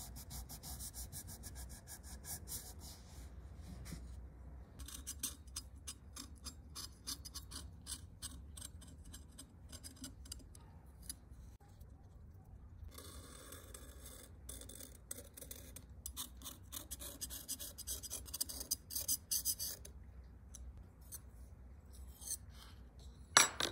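A blade scraping softened black coating off a flat brass strip: rapid scratching strokes in runs of a few seconds with short pauses between them. There is a sharp click near the end.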